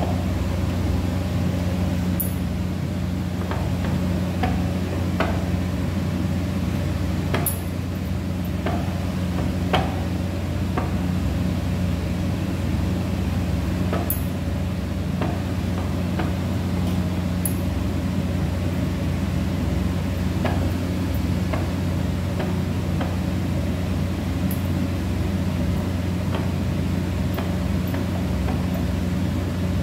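A steady low hum throughout, with scattered light knocks and taps of a wooden rolling pin on a wooden board as roti dough is rolled out.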